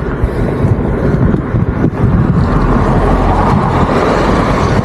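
A motor vehicle going by on the road, its noise swelling from about two and a half seconds in, over a steady low rumble.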